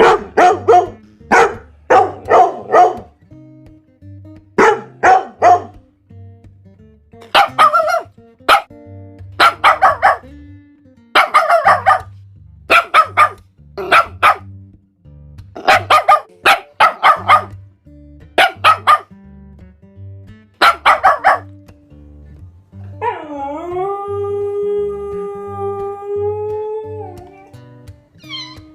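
Dog barking in repeated groups of two to four barks, then one long howl near the end, over background music.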